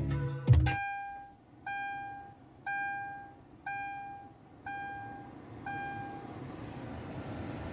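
Music cuts off sharply in the first second. Then a car's warning chime dings six times, about once a second, each ding one clear tone that fades. Near the end a steady rushing noise rises.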